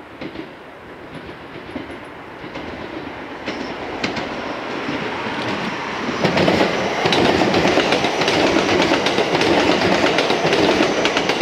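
JR West 227 series 'Urara' electric train approaching and passing close by, growing steadily louder for about six seconds, then running loud with rapid wheel clicks over rail joints as the cars go past.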